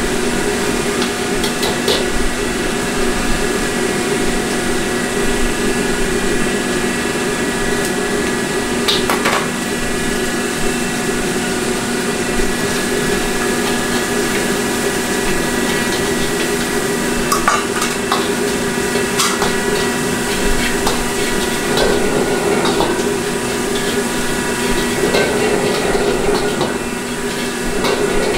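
Steady rush and hum of a commercial wok burner, with a metal ladle clinking and scraping against a wok as onions are stir-fried. There are scattered sharp metal knocks, the loudest about nine seconds in.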